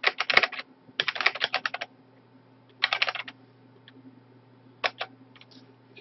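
Typing on a computer keyboard: quick runs of keystrokes with pauses between them, the last few keys tapped about five seconds in. A faint steady low hum sits underneath.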